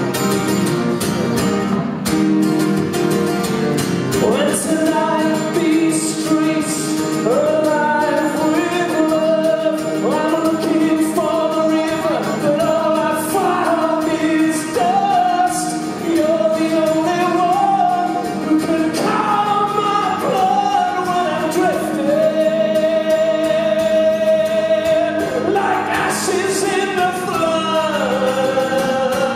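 Live acoustic guitar strummed steadily, with a man's voice singing a slow melody of long held notes over it from about four seconds in.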